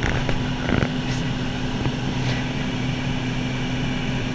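Light single-engine propeller airplane in flight: engine and propeller droning steadily at an even pitch.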